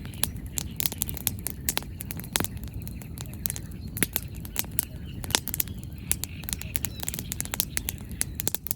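Wood bonfire burning, the firewood crackling and popping at irregular intervals, a few pops louder than the rest, over a low steady rumble.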